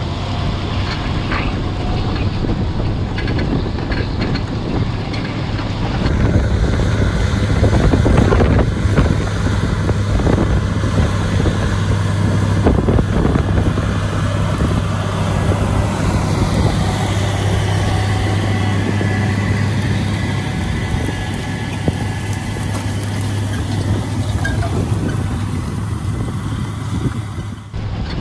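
White 4-270 four-wheel-drive tractor's Caterpillar 3208 V8 diesel working under steady load, pulling a strip-till bar in the ground. Its steady low hum grows louder about six seconds in and holds, then drops off sharply just before the end.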